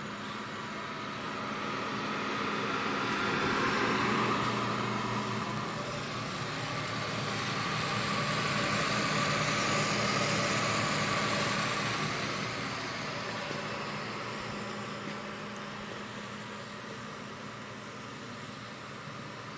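BEcom proofer humidifier running with both its steam generator and heater on: a steady blowing hiss with a low hum. It grows louder twice, about four and ten seconds in, then eases off.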